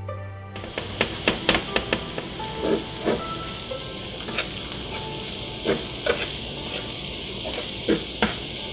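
Garlic, green onion and orange peel frying in peanut oil in a pan, sizzling steadily, with a dozen or so sharp taps as a utensil stirs them against the pan.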